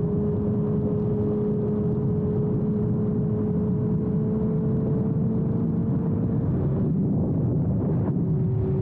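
Suzuki GSX-R1000R inline-four with a Yoshimura exhaust running at a steady cruise. Its note holds one pitch and creeps slightly higher, breaks briefly about seven seconds in, then settles steady again.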